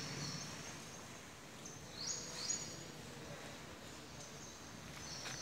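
Faint steady background hum of a large open shed, with a few short, high rising chirps from small birds about two seconds in.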